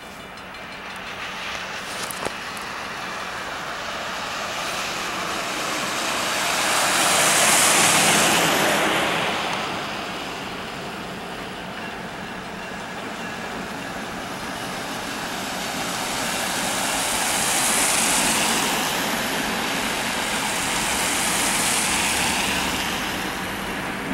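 Cars passing on a wet road, their tyre hiss swelling and fading three times, over a steady low hum from an approaching diesel freight locomotive.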